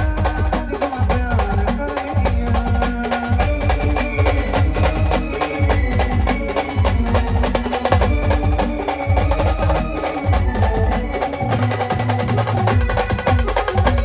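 Brass band music: melody instruments playing held notes over fast, steady drumming.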